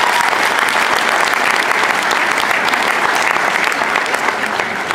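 Audience applauding steadily, a dense mass of clapping hands.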